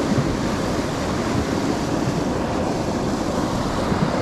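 Steady rush of water pouring through a dam spillway and churning along the shore.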